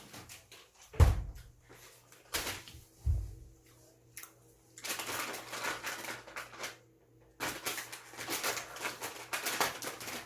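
Eating and handling bungeoppang (fish-shaped pastries) close to the microphone: a few knocks in the first three seconds, then two long stretches of crackly rustling and chewing noise.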